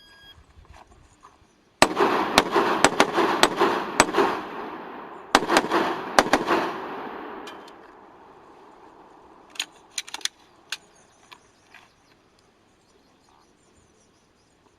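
A shot-timer beep, then rapid 9mm pistol fire in two strings: a fast run of shots about two seconds in, a short pause, then a second quicker string, each shot ringing out. A few lighter clicks follow near the end.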